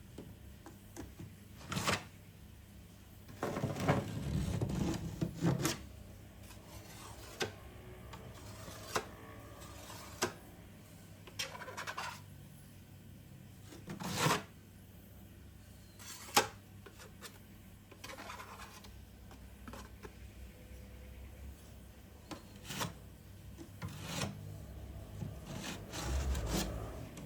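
Hand-tool work: intermittent scraping and rubbing with scattered sharp knocks and clicks. There is a longer stretch of scraping about four seconds in, and more near the end.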